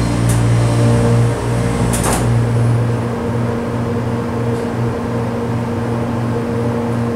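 Schindler hydraulic elevator's original pump motor running with a loud, vibrating hum, heard from inside the car. A sharp click comes about two seconds in, and after it the hum pulses about twice a second.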